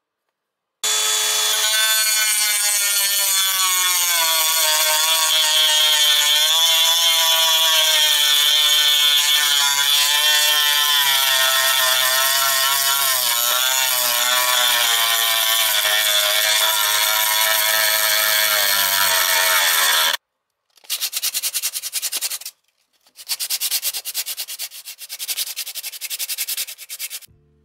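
Handheld rotary tool with a sanding drum running at high speed against a rusty metal ring, sanding off rust and old paint, its whine wavering and sagging as the load changes. It cuts off suddenly about 20 seconds in and is followed by two spells of hand sanding, abrasive rubbing on the ring.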